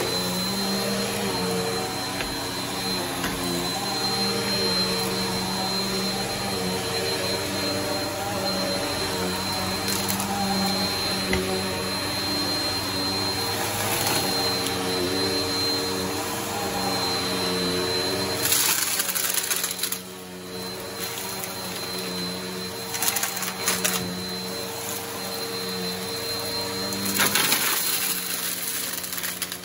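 Upright vacuum cleaner running on carpet: a steady motor hum with a thin high whine. A few short bursts of hiss and rattle come in the second half as it sucks up clumps of dirt and debris.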